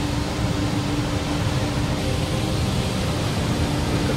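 Large waterfall pouring, a steady loud rush of falling water.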